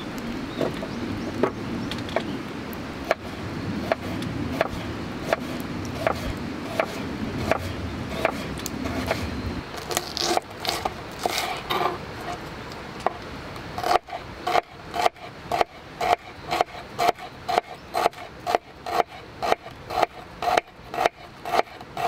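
Kitchen knife slicing vegetables on a wooden cutting board: a steady series of sharp chopping knocks. About halfway through they become louder and crisper, at about two a second.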